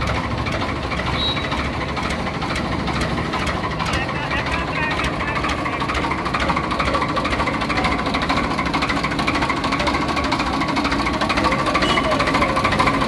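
Farmtrac 60 tractor's diesel engine idling steadily, with an even rapid firing rhythm.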